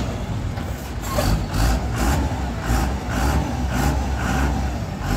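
Diesel tipper truck engine running under load and revving as the truck moves on a muddy, stony slope.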